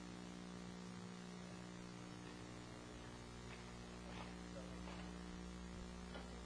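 Faint steady electrical mains hum with its overtones on the audio line, with a few faint indistinct room noises in the middle.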